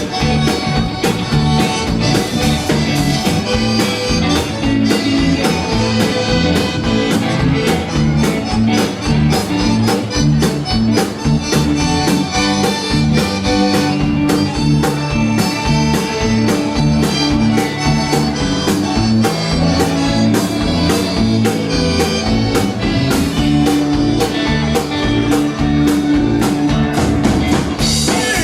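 A band playing an instrumental passage of dance music with a steady beat.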